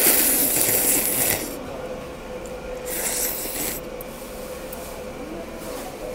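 Noodles being slurped in loud, hissing bursts: a long slurp over the first second and a half, then a shorter one about three seconds in.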